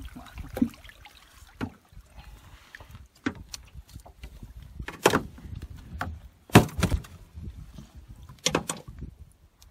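Scattered knocks and thumps, about six, as a large peacock bass is laid down and held on a measuring board on a boat deck; the loudest knock comes about two-thirds of the way through.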